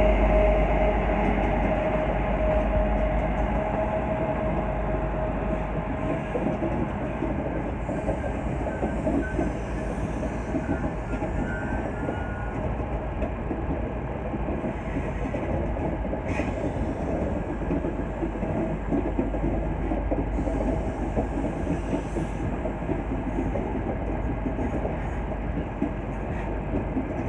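Class 43 HST power car's diesel engine moving past with a steady tone, fading over the first few seconds. Then its Mark 3 coaches roll past with a steady rumble and wheel clatter, with one brief sharp squeak or click partway through.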